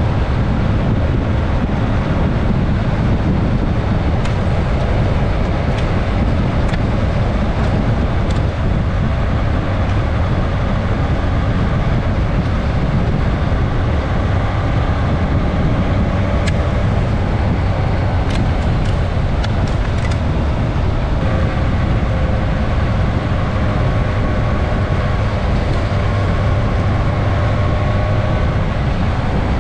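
Suzuki GSX-S1000S Katana motorcycle's inline-four engine running steadily under way, heard from its onboard camera with road and wind noise, and a few brief clicks.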